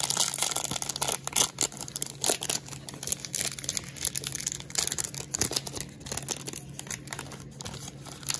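Foil wrapper of a 2020 Bowman Draft jumbo card pack being torn open and crinkled by hand: irregular crackling and rustling of foil throughout.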